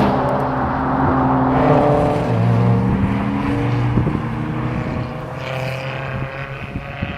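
Mercedes SL500's V8 engine running under way, its note shifting in pitch in steps as the car changes speed, then getting quieter in the last couple of seconds.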